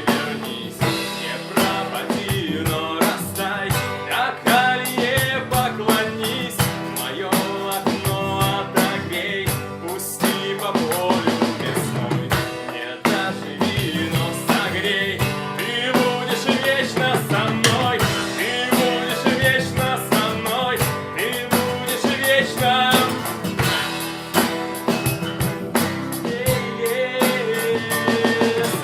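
Band music: a drum kit with rimshots and guitars playing a passage with no clear words.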